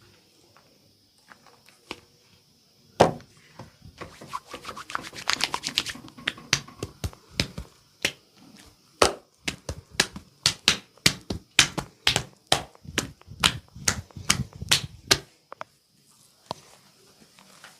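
Hands striking a body in percussive massage: a single sharp smack, a quick flurry of rapid taps, then a steady run of about three slaps a second that stops suddenly.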